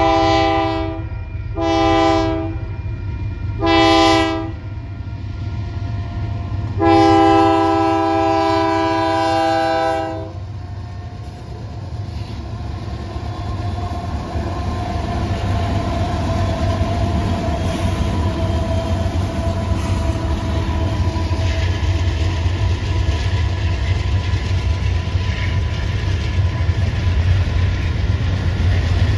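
Diesel locomotive air horn, a chord of several notes, sounding the grade-crossing signal: two long blasts, a short one, then a long one of about three seconds. After it, the steady low rumble of the freight train passing, with wheels clicking on the rails, slowly growing louder.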